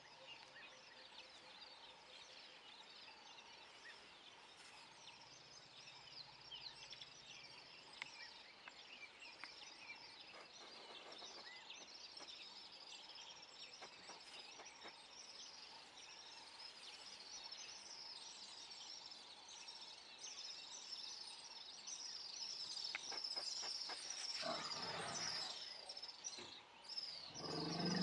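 Many small birds chirping steadily in a busy chorus. Near the end, a louder, lower noisy sound swells twice, briefly.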